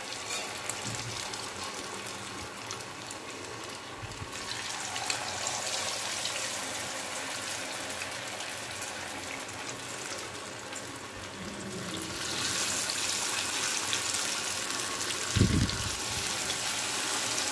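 Cornflour-battered vegetable Manchurian balls deep-frying in very hot oil in a kadhai, a steady sizzle that grows louder about two-thirds of the way through. A brief low thump comes near the end.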